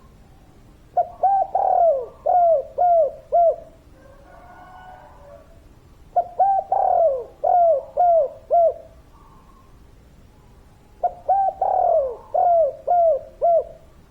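Spotted dove (derkuku, tekukur) cooing: three phrases about five seconds apart, each a quick run of five or six coos.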